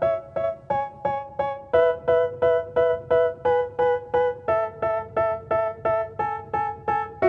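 Background music: a piano-like keyboard plays a steady run of repeated notes, about two and a half a second. The chord changes twice.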